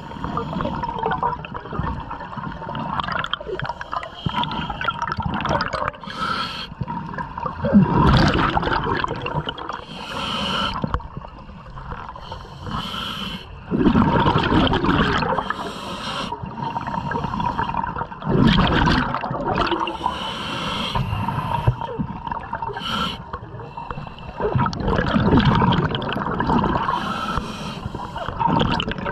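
Scuba diver breathing through a regulator underwater: a short hiss on each inhalation and a loud burst of exhaled bubbles every five or six seconds.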